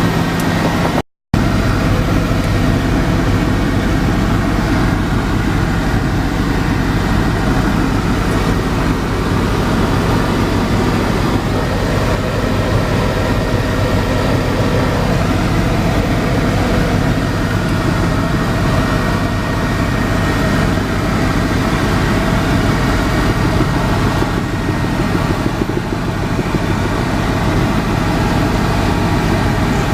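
Helicopter cabin noise: a steady, loud drone of engine and rotor with a low hum. It drops out for a moment about a second in.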